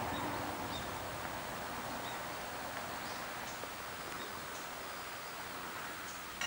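Outdoor ambience: a steady rustling hiss with a few short, high bird chirps scattered through it, slowly getting quieter.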